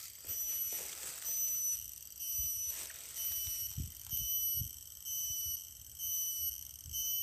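Insects calling in a high-pitched, pulsing chorus that swells about once a second, with a few faint low thumps near the middle.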